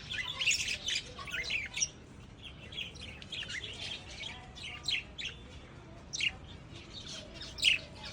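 Lovebirds chirping: a busy, continuous stream of short, high chirps and quick pitch sweeps from several birds, with one louder, sharper chirp near the end.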